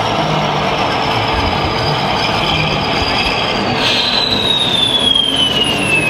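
High-pitched whine from a scale RC tractor-dozer's electric drive as it pushes sand, the whine falling steadily in pitch over the last two seconds, over a steady noisy din of the crowded hall.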